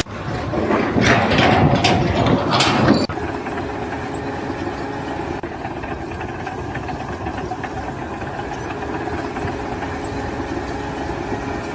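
An engine running steadily at an even pitch. In the first three seconds there is a different, louder noisy stretch with several sharp knocks or bangs.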